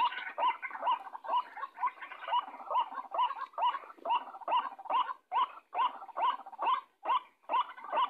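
White-breasted waterhen (ruak-ruak) calling: a rapid, even run of short notes, about two or three a second. This is the call used as a lure to draw the bird to a snare.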